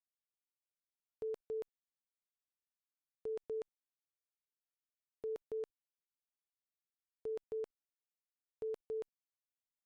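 Electronic beeps, a single pure mid-pitched tone sounded in quick pairs, a pair about every two seconds, over otherwise dead silence.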